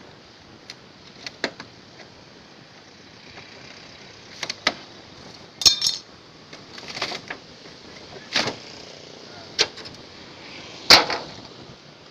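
Irregular sharp knocks and clanks, about ten strikes with a short ring after some, the loudest near the end: tools striking metal as a scrapped refrigerator is broken apart.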